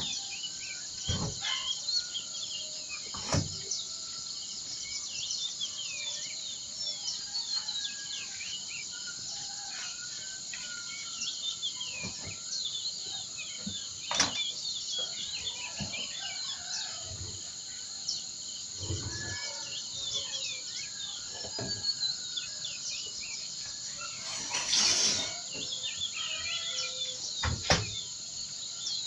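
Many small songbirds chirping and twittering in quick, overlapping short notes over a steady high-pitched background drone. A few soft knocks are heard, and there is a brief rush of noise about 25 seconds in.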